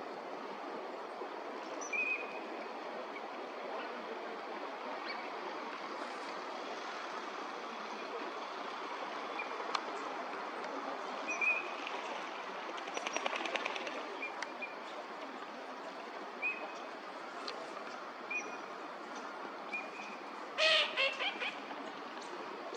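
Eurasian teal calling: short, high whistled calls every few seconds, with a louder burst of calls near the end, over steady background noise.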